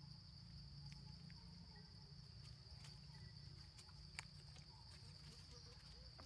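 Faint, steady high-pitched drone of insects in the undergrowth, with a few faint clicks, one sharper tick about four seconds in.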